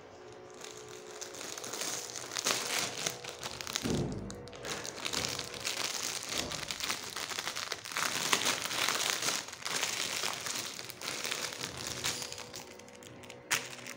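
Clear plastic polybag crinkling and rustling as it is pulled off a backpack by hand, with a dull thump about four seconds in.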